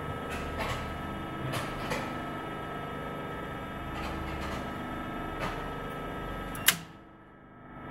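Steady electrical hum from an industrial control cabinet, with a few light relay clicks, then a sharp contactor click near the end after which the hum drops away.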